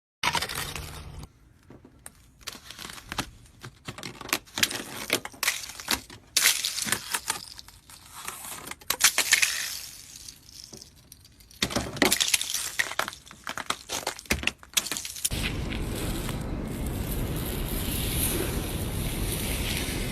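Ice being broken and cleared off a car, with many sharp cracks, crackles and crunchy scrapes in irregular runs. About three-quarters of the way through, a steady rushing noise takes over.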